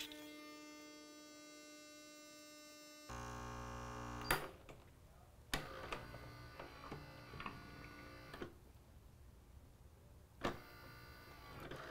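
Gaggia Babila super-automatic espresso machine brewing coffee into a cappuccino, faintly: a steady hum at first, a louder pump buzz about three seconds in that ends with a click, then scattered clicks and drips as the brew finishes.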